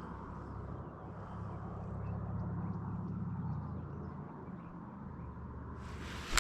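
A boat motor humming low and steady, swelling a little partway through and then easing off. A sharp click comes right at the end.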